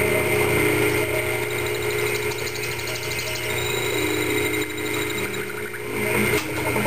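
Vertical milling machine running steadily, a low hum under a high whine, while its quill is hand-fed down into the metal workpiece. The whine drops out near the end.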